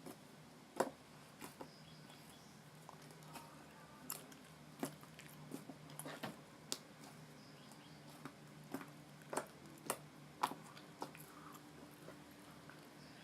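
Slime being squeezed and poked by hand, giving irregular small wet clicks and pops, about one or two a second, from air bubbles bursting.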